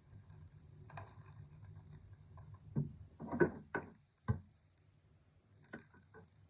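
Hands handling trading card packaging: faint rustling and tapping, with a louder cluster of crinkles and knocks about three to four seconds in, over a low steady hum.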